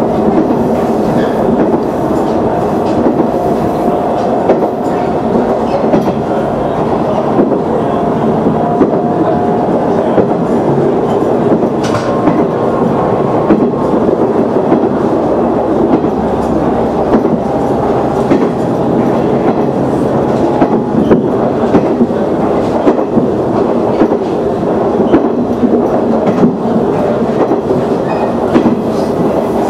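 KiHa 110 diesel railcar running steadily along the line, heard from the front of the train: the engine's drone with the wheels clicking over rail joints, and a faint whine now and then.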